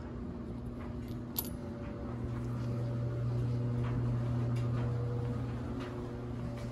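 A steady low hum, louder in the middle, with a few light metallic clinks from spark plugs handled in the hand.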